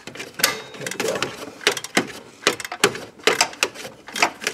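Hand ratchet and socket clicking in short runs, with light metal knocks, as the serpentine belt tensioner's bottom mounting bolt is snugged down.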